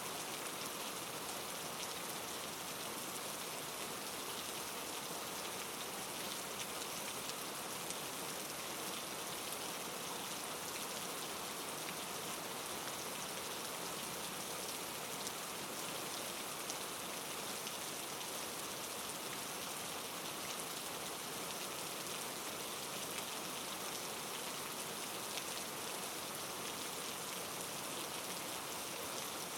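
Steady rain falling, an even hiss of many fine drops on a surface with no thunder.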